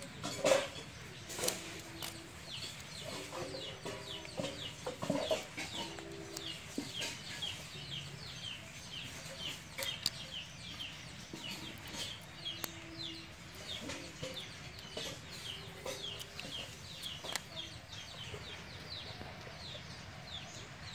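Chickens clucking, with a continuous run of short, high, falling peeps several times a second. A few sharp clicks stand out, the loudest near the start.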